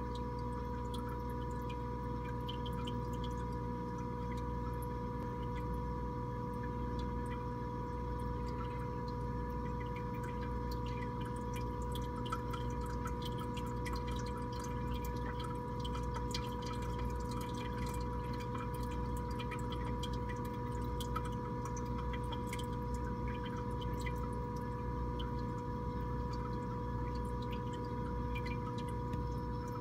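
Steady hum of running aquarium equipment, holding two steady tones over a low rumble, with faint water dripping and trickling.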